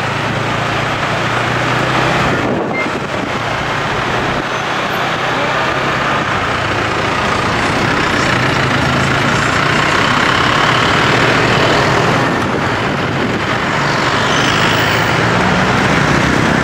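Riding a motorbike through city street traffic: steady engine and road noise with a low engine hum that swells and fades, and other vehicles running close by.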